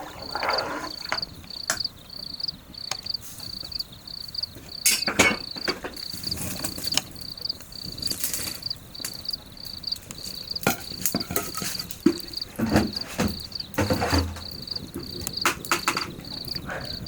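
A cricket chirping steadily, a high pulsing trill repeating about twice a second, over scattered sharp knocks and clatters of things being handled.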